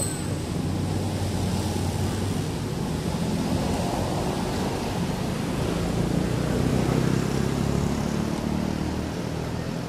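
Steady low rumble of motor traffic, with no distinct calls or knocks.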